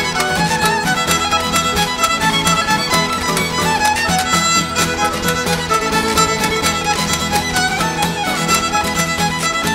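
Live folk band playing a fast instrumental tune: a fiddle carries the melody over strummed acoustic guitars and a steady scraped and tapped washboard rhythm.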